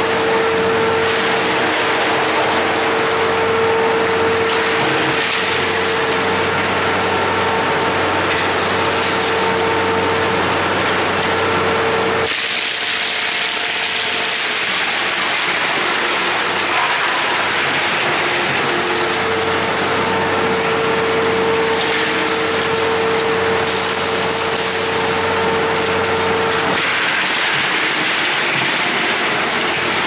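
Large drum wood chipper running and chipping wood: a loud, steady mechanical clatter with a steady whine. About twelve seconds in the whine drops out and the sound turns hissier and thinner.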